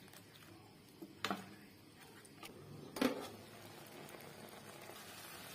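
Two knocks of cooking utensils against a frying pan, about a second in and about three seconds in, the second the louder. They sit over a faint hiss of fish simmering in sauce, which grows louder through the second half.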